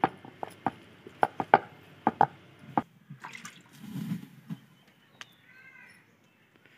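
Dough being kneaded by hand in an aluminium bowl: a quick run of short wet slaps and squelches during the first three seconds, then quieter.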